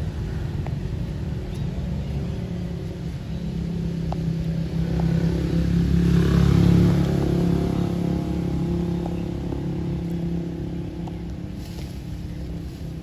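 A motor engine humming steadily, growing louder to its peak about halfway through and then easing off.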